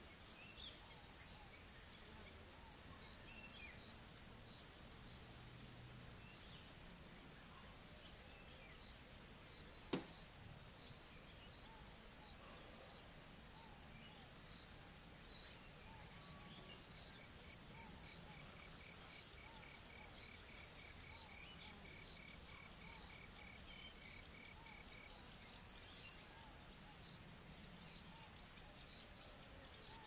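Insects chirping in a grassy field: a steady high-pitched whine with a constant run of rhythmic chirps above it. An evenly pulsed call of two or three notes a second joins for several seconds in the middle, and there is one sharp click about ten seconds in.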